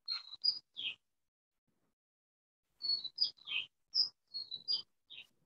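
A small bird chirping: three short, high chirps in quick succession, then after a pause of about two seconds a longer run of about ten short chirps.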